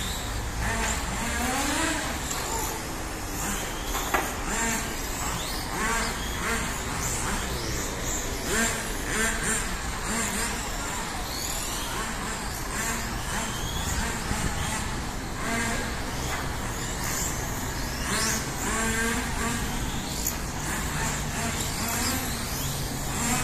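Electric 1/12-scale RC racing cars lapping a track, their motors whining in short glides that rise and fall as they accelerate and brake, over a steady low hum.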